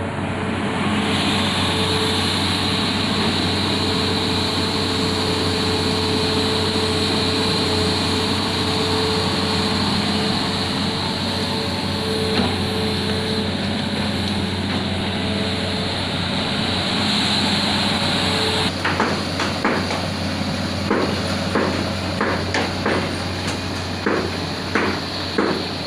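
Hitachi excavator's diesel engine running steadily. About three-quarters of the way through the sound changes abruptly to a run of sharp knocks, roughly two a second.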